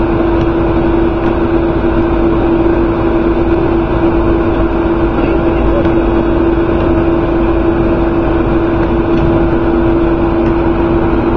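Boat engine running steadily: a constant hum over an even rushing noise.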